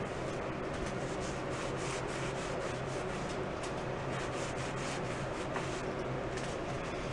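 A cloth rag rubbing quickly back and forth over a painted wooden snare drum shell, wiping off excess glue from a repaired crack, over a steady low hum.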